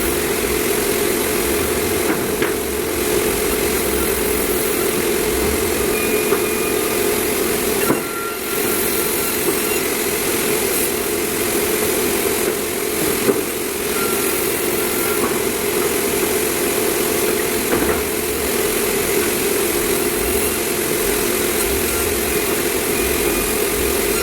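Sawmill machinery running steadily while cutting meranti timber, with a few brief knocks and a short dip in the noise about a third of the way in.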